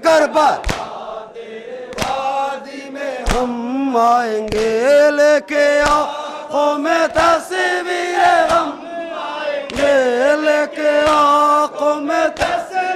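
Men chanting a Muharram noha lament together, led through a microphone, with a sharp chest-beating (matam) thump about every 1.3 seconds keeping the beat.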